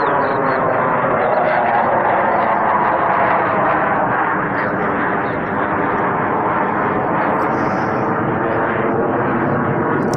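Eurofighter Typhoon jet fighters passing overhead: a loud, steady rush of jet-engine noise that dips slightly midway and holds on.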